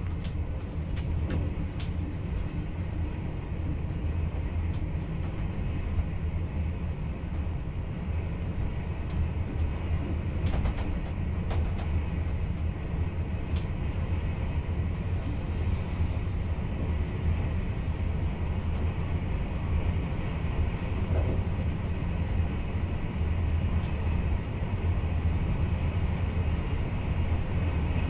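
Steady low rumble of an NS VIRM double-deck electric train running on the track, heard from inside the driver's cab, with a few scattered sharp ticks.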